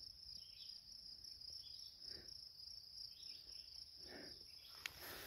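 Faint, steady high-pitched insect chorus from the meadow, with a few soft rustles, about two seconds apart, in the grass.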